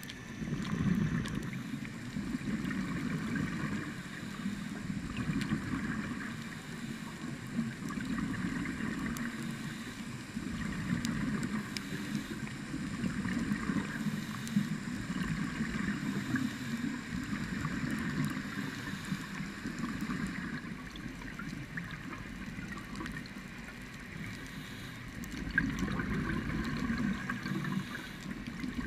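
Scuba diver's regulator breathing heard underwater through a GoPro housing: the rushing, gurgling rumble of exhaled bubbles, swelling and easing in irregular waves every few seconds.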